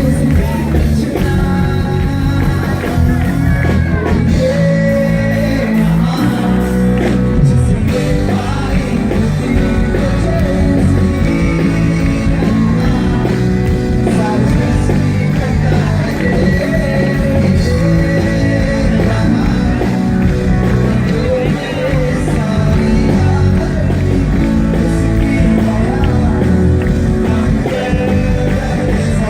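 Live band playing a rock-style song with a lead vocalist, loud and unbroken.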